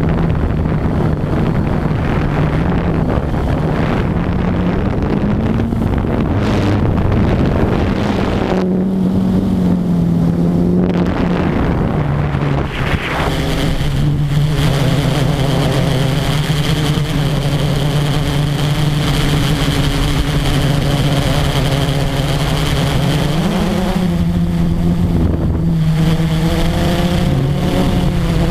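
Blade 350 QX quadcopter's brushless motors and propellers buzzing steadily, picked up by the GoPro mounted on the drone itself, the pitch rising and falling as the throttle changes. Wind rushes over the microphone through the first several seconds, after which the motor hum comes through cleaner.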